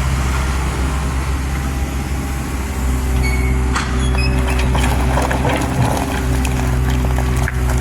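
Excavator's diesel engine running steadily under load. About four seconds in a steady higher whine joins it, along with a run of clattering knocks from the machine at work.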